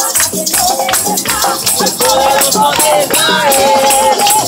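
A song with a singing voice and a steady beat, with a pair of maracas shaken along in rhythm.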